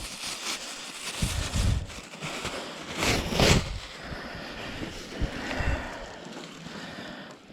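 Wind buffeting the microphone outdoors, with low gusty thumps and a louder burst of noise about three seconds in.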